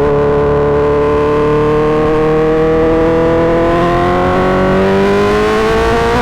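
Suzuki GSX-R1000 inline-four engine through an M4 GP slip-on exhaust, accelerating hard in one gear. The engine note climbs steadily and unbroken as the revs rise.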